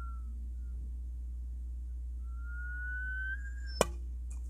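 Plastic Sharrow whistling arrowhead whistling in flight: a tone fading out at the start, then a whistle rising in pitch from about two seconds in. A sharp knock follows just before the end.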